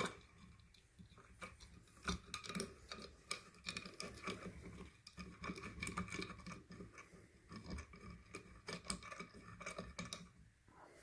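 Bolts being fitted and hand-turned into a wooden chair leg: scattered small clicks, taps and scraping, with a sharp click at the start, dying away shortly before the end.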